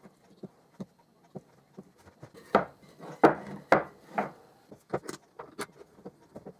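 Glued beech boards being handled on a plywood workbench: a few faint ticks, then about four heavier wooden knocks as the boards are set together. Near the end come lighter sharp clicks of metal bar clamps being fitted.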